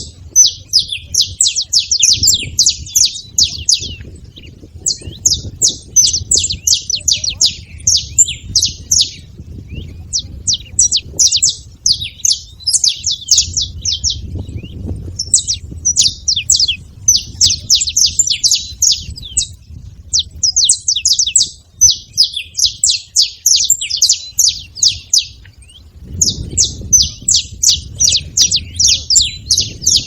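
Saffron finches chirping: rapid runs of sharp, high notes in phrases of two to three seconds, broken by short pauses and repeated.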